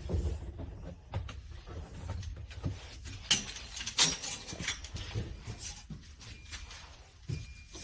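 Scattered light knocks and clicks of someone moving about inside a school bus, over a low rumble; no engine cranks or runs.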